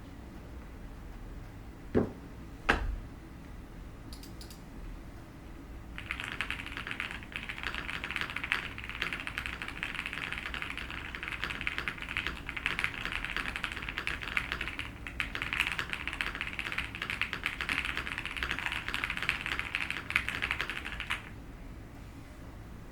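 Fast continuous typing on a QK75N mechanical keyboard with lubed WS Morandi linear switches, an FR4 plate, foam and GMK keycaps: a dense stream of key clacks that starts a few seconds in and stops shortly before the end. Two sharp knocks come first, louder than the typing.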